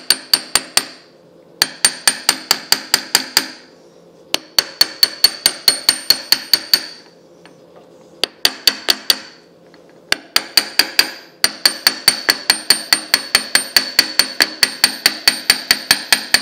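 Brass-headed hammer tapping a gear onto its shaft in a DoAll milling machine gearbox: quick light taps, about five a second, in runs of one to two seconds with short pauses, then an unbroken run over the last several seconds. Each run carries a bright metallic ring.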